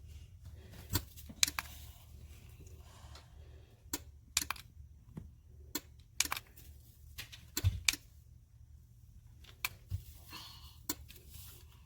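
Irregular light clicks and taps, about a dozen spread unevenly, over a faint low steady hum.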